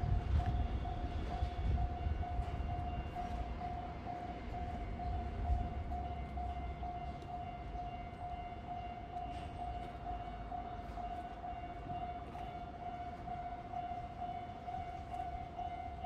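Railway level-crossing warning bell ringing in a steady, evenly repeated pattern, over the low rumble of a passing train that fades over the first few seconds.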